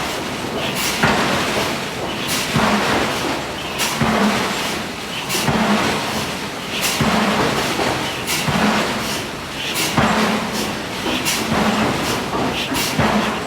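Hydraulic forging hammer striking hot steel again and again at a fairly steady pace, about one blow every second or so, over a continuous industrial din.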